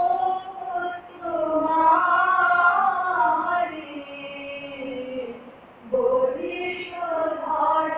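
Voices singing a slow song in long held notes, softer for a moment around five seconds in before a new phrase begins.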